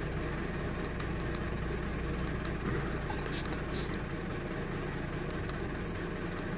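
A Ford Fiesta engine idling steadily, heard from inside the cabin, with a few faint clicks.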